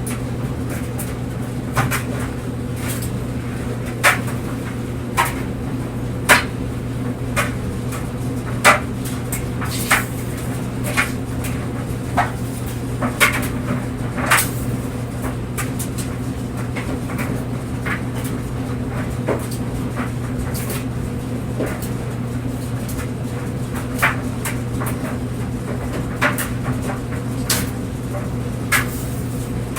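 Clothes dryer running with a steady hum from its motor and drum, while the tumbling load knocks and clicks against the drum at irregular intervals, roughly once every one to two seconds.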